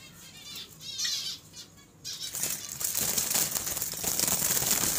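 Java sparrows give a few faint high chirps in a wire cage. A little over two seconds in, a loud flurry of wingbeats breaks out as the birds flutter about the cage while a hand reaches in to catch one.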